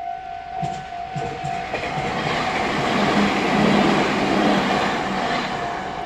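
Meitetsu electric train passing over the level crossing, with a few wheel clacks early on. Its rushing noise builds to a peak in the middle and fades toward the end. Throughout, the electronic crossing bell keeps dinging steadily.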